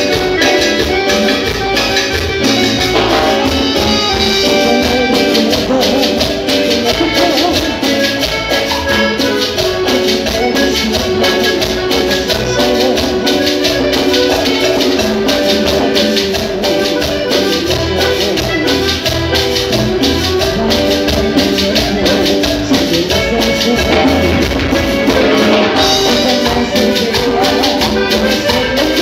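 Live band playing Latin dance music with accordion, timbales, a shaker and electric guitar, amplified through stage speakers, with a fast, steady beat.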